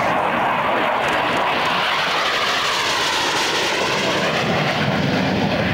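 Jet noise from an AV-8B Harrier's Rolls-Royce Pegasus turbofan as the jet banks past in flight, loud and steady, with a sweeping, phasing shift in tone around the middle.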